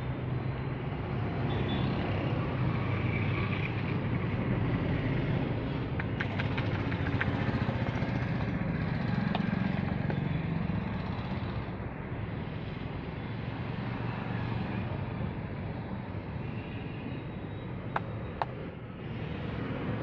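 Steady rumble of road traffic. A few faint ticks come about six to seven seconds in, and two sharp clicks about half a second apart come near the end.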